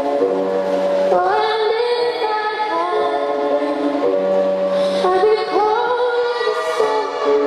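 Music with a woman singing long held notes, her voice sliding up into a new note about a second in and again after about five seconds, over a sustained low accompaniment: the accompaniment music of an artistic swimming solo routine.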